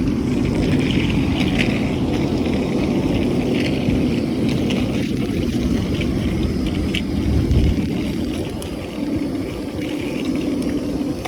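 Steady low rumble of a moving vehicle, with faint scattered rattles and clicks.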